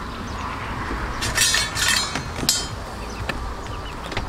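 Metal ladle stirring boiling broth in a large aluminium stockpot, scraping and clinking against the pot in a few sharp, ringing strokes around the middle, over a steady low rumble.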